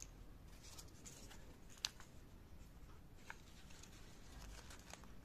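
Faint rustling and light ticks of folded origami paper being handled and fitted together, with one sharp click a little under two seconds in.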